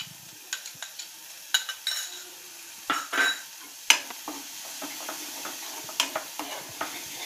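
A metal spoon scraping and clicking against a metal kadai as chopped onion and garlic are stirred into hot butter and ghee, over a faint steady sizzle of frying.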